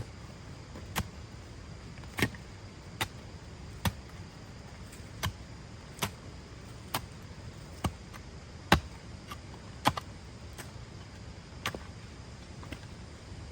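A series of sharp, short knocks, about one a second and fairly regular, like chopping or striking, over a steady low background rumble.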